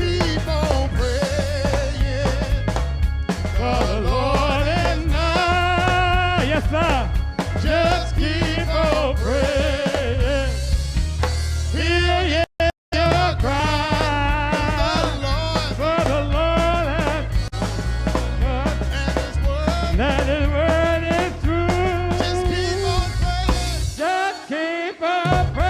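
Gospel worship music: voices singing over a band with a steady bass line. The sound cuts out twice, very briefly, about halfway through, and the bass drops out shortly before the end.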